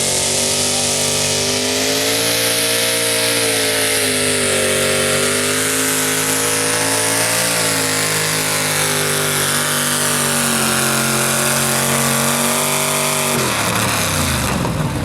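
A pulling truck's engine held at high, nearly steady revs, the pitch wavering only a little, as it drags the sled down the track. About thirteen seconds in, the steady note cuts off abruptly.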